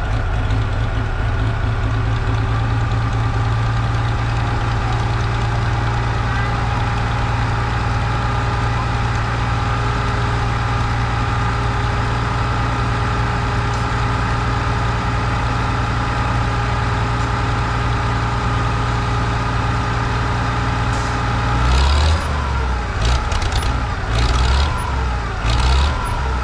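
A Farmall 560's gasoline six-cylinder engine, newly fitted with an electronic-ignition distributor, idles steadily. Near the end it is revved several times in quick short bursts.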